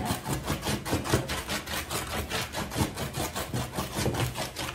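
A small two-handled rocking mincing knife (makhrata) chopping jute mallow (mulukhiyah) leaves on a metal tray, in fast, even strokes about five a second, mincing the leaves fine.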